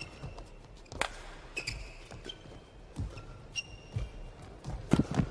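Badminton rally: rackets striking the shuttlecock with sharp cracks, the clearest about a second in and near the end, between short squeaks of court shoes and dull footfalls on the court.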